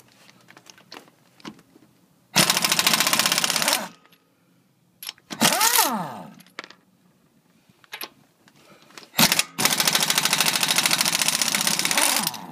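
Pneumatic impact wrench run in reverse on lug nuts: two bursts of rapid hammering, the first about a second and a half long and the second nearly three seconds, with a brief whirring spin falling in pitch between them and a few light clicks.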